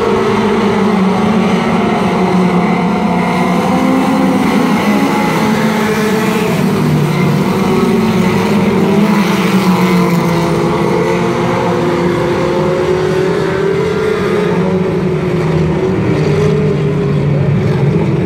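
Several four-cylinder mini stock race cars running together, their engines revving, with pitches rising and falling over one another.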